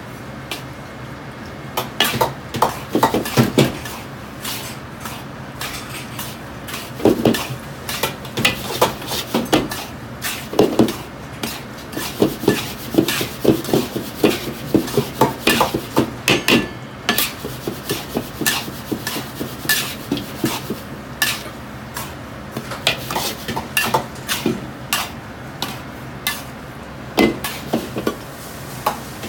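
A metal ladle scraping and knocking against a carbon-steel wok while salt and Sichuan peppercorns are stir-roasted dry. The scrapes and clicks come irregularly, thinning out for a few seconds about two-thirds of the way through, over a steady low hum.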